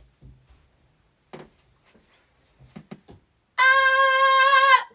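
A few faint knocks and shuffles, then near the end a loud, steady held note of about a second with a brassy, horn-like tone. This is the noise from the other class outside the classroom.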